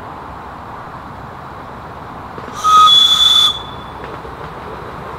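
Miniature 7¼-inch gauge steam locomotive sounding one short, high-pitched blast on its whistle, about a second long, a little past the middle.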